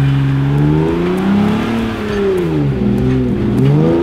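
Jeep Wrangler engine revving up and down, its pitch falling and climbing again several times over a steady low hum.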